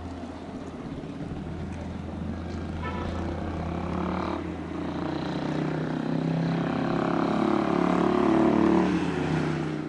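A motor vehicle passing close by. Its engine note grows steadily louder and falls in pitch in the second half, over a steady low hum.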